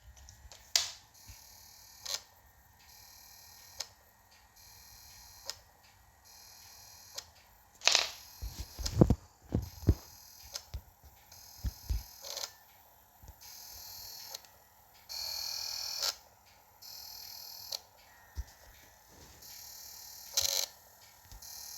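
Irregular mechanical clicks and knocks with a few short stretches of steady hiss that switch on and off abruptly, from a portable disc player working through a faulty burned disc, its mechanism seeking and skipping between tracks.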